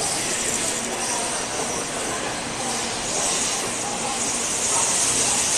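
N700A Shinkansen train moving along the platform as it pulls out, a steady rush of running noise with a high hiss that grows stronger about three seconds in.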